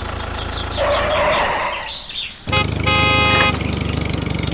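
Steady low engine drone with birds chirping, broken about two and a half seconds in by a loud horn-like blast that lasts about a second before the drone returns.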